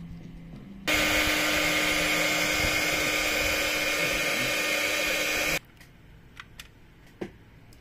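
Hot-air heat gun running for about five seconds, a steady blowing rush over a low motor hum, switched on about a second in and cut off abruptly, as used to shrink heat-shrink tubing over soldered leads. A few faint clicks follow.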